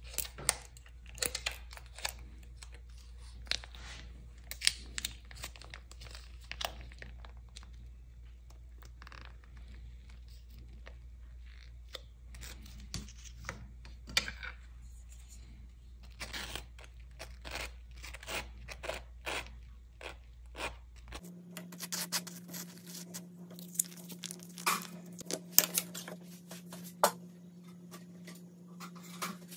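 Crisp crackling and crunching of dry toast being handled, with scattered sharp clicks, over a steady low hum that shifts to a higher-pitched hum about two-thirds of the way through.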